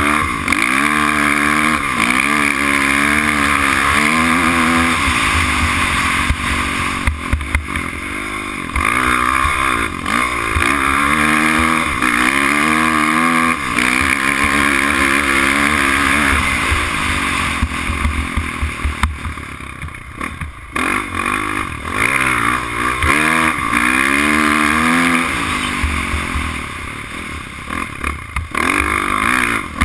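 Dirt bike engine revving up and dropping back again and again as the rider works the throttle and gears. It eases off briefly about two-thirds of the way in and again near the end.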